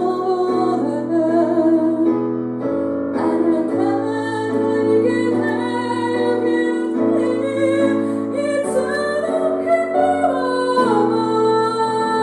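A slow ballad played live: piano or keyboard chords with a woman singing a held, wavering melody.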